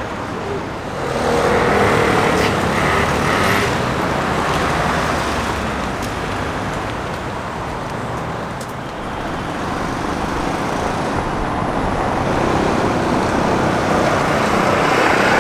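Road traffic: a steady wash of cars and other vehicles on a city street, swelling as vehicles pass, once about a second in and again near the end.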